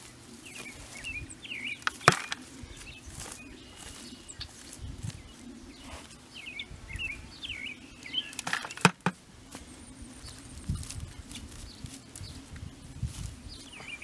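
Hand cultivator scratching and digging through soil to pull out weed root mats, in irregular scraping strokes with two sharp clicks, about two seconds in and near nine seconds. Small birds chirp in the background.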